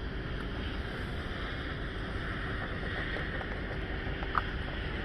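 Steady heavy rain falling, a dense even hiss and patter, with one sharp tap about four seconds in.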